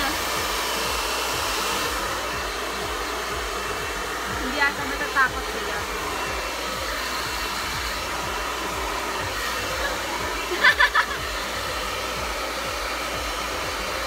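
Handheld hair dryer running steadily as it blows on damp hair. Short high voice sounds come over it a few times, loudest about eleven seconds in.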